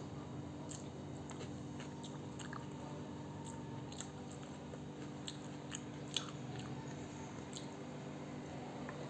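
A person eating, chewing with scattered small clicks and crunches, over a low steady hum.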